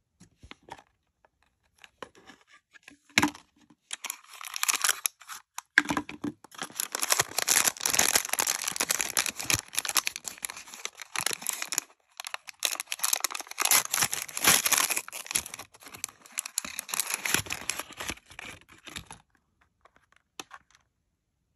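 A plastic toy case clicks open about three seconds in. Then a crinkly wrapper crackles and tears, on and off for about fifteen seconds, as it is unwrapped by hand.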